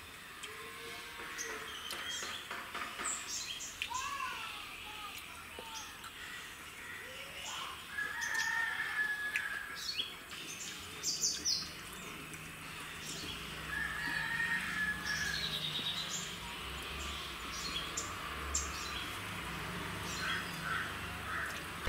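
Backyard chickens and small birds calling: many short high chirps, a couple of rising calls, and two long drawn-out calls, one about a third of the way through and one about two thirds through. A faint low hum comes in about halfway.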